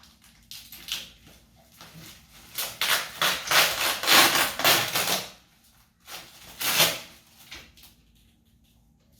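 Packaging being opened by hand: scattered taps and clicks, then a few seconds of loud rustling, and a shorter burst of rustling about seven seconds in.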